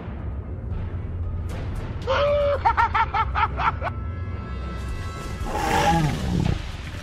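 Background music with a steady low drone, over which a cartoon laugh sound effect plays about two seconds in: a held note breaking into rapid 'ha-ha' pulses for about a second and a half. Near the end a falling, growl-like cry sounds.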